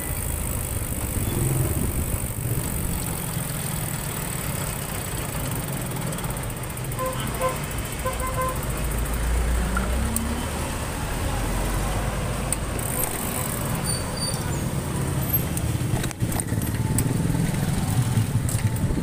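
Street traffic heard from a moving two-wheeler: a steady rumble of engines and road noise. A deeper rumble swells about halfway through, when the dump truck just ahead is closest.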